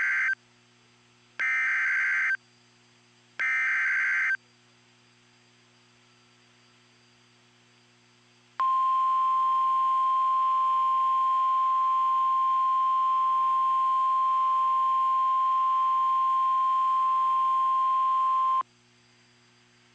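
NOAA Weather Radio Emergency Alert System signal: three short bursts of digital SAME header data, about two seconds apart. After a pause of about four seconds comes the steady single-pitch warning alert tone, held for about ten seconds, which announces a severe thunderstorm warning.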